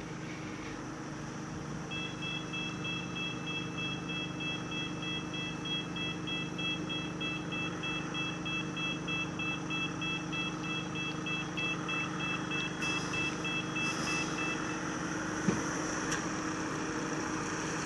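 An engine idling steadily while an electronic warning beeper sounds rapidly, about three beeps a second, starting about two seconds in and stopping about two-thirds of the way through; a couple of small knocks follow.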